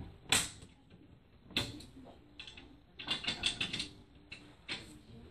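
Crisp crackling and rustling of dry aspen shavings as a Pueblan milk snake burrows through its bedding. The sound comes in short bursts, with a quick run of crackles about three seconds in.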